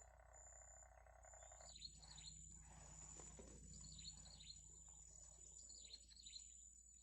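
Faint outdoor ambience. Small birds chirp in short bursts of high notes a few times, over a steady, high, pulsing insect drone.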